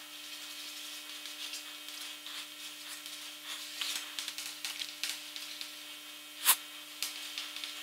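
Chalk scratching and stroking on a chalkboard as a diagram and words are drawn, with one sharp tap a little after six seconds in. A faint steady hum sits underneath.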